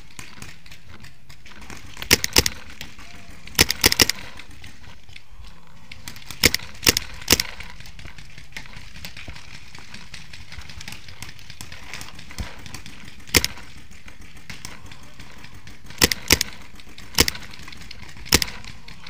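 Paintball marker shots: about a dozen sharp pops, singly and in quick groups of two or three, spread irregularly.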